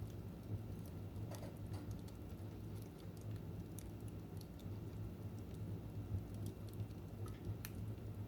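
Wood fire crackling in a fireplace: irregular sharp pops and snaps, the clearest about a second in, near the middle and near the end, over a steady low rumble.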